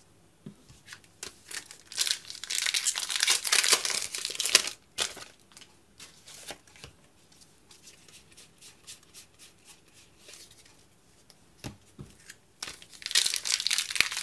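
Foil wrapper of a Pokémon trading-card booster pack crinkling and tearing, in two spells: one from about two to four and a half seconds in, and another starting near the end as a pack is ripped open. In between come soft clicks and slides of cards being handled.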